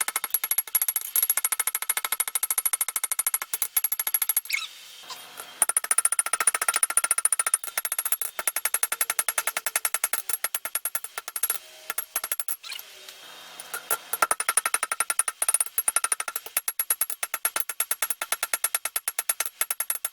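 A three-pound rounding hammer strikes hot steel on an anvil in quick, steady blows, each with a bright metallic ring. The smith is drawing out the bar for a knife blade. The hammering pauses briefly twice.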